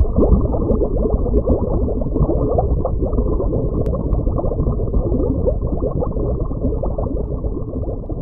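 Underwater bubbling sound effect: a dense rush of bubbles, muffled, with no high end.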